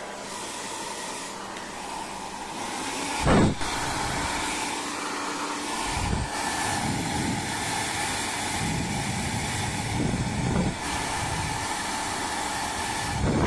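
Xiaomi ionic hair dryer running, a steady rush of air with a faint steady whine, broken by a few low thumps.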